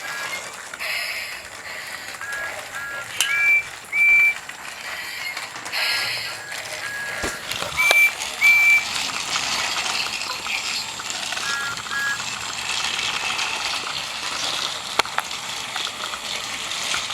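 Battery-powered toy Thomas and Percy trains from a talking train set, their small motors and plastic gears running and clattering, with short paired electronic beeps from the set's sound effects sounding several times in the first two-thirds.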